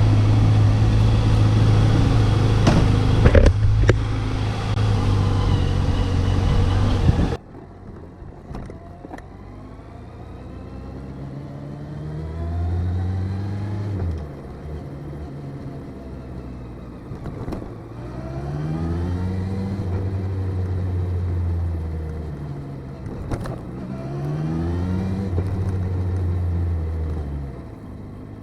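Motorcycle engine running loud and steady, then after a sudden cut heard quieter and muffled through the wrapped recorder as the bike is ridden, its engine note rising and levelling off three times as it accelerates.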